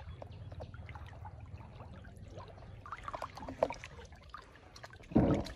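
Muddy pond water sloshing and trickling around a man wading chest-deep and working a net, with small splashes and a brief louder burst near the end.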